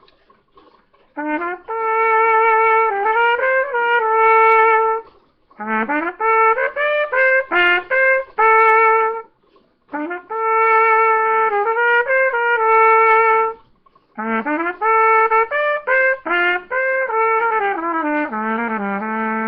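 A brass horn played solo: a slow melody in four phrases, each sliding up into long held notes. The last phrase ends on a held low note.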